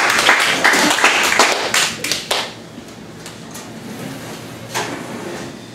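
Audience clapping that dies away about two seconds in, followed by a quieter room with a single sharp knock near the end.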